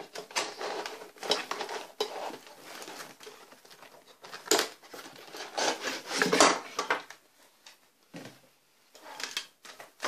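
Cardboard retail packaging of a CPU cooler being handled: the outer box pulled open and the inner cardboard box slid out, with irregular scraping and rubbing and a few sharp knocks, busiest in the middle and quieter near the end.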